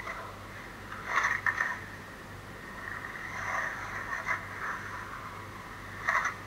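Skateboard wheels rolling and scraping on a concrete bowl, with a few sharp clacks of the board and trucks hitting the surface, over a steady low hum.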